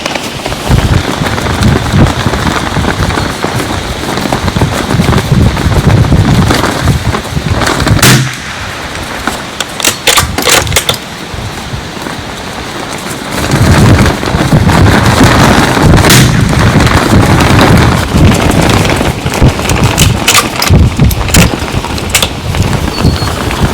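Strong gusting wind buffeting the microphone, with several sharp single shots a few seconds apart from a Bergara BMR rimfire rifle firing CCI Standard Velocity .22 LR.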